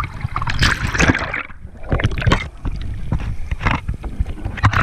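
Seawater splashing and sloshing around a waterproof action camera held at the surface by a swimmer, in irregular surges, turning muffled as the camera dips under the water.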